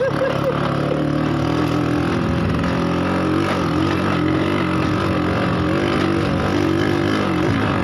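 Bajaj M80 moped engine running at a steady speed under way, its pitch wavering slightly as the throttle shifts, over rolling noise from the ride on a dirt track.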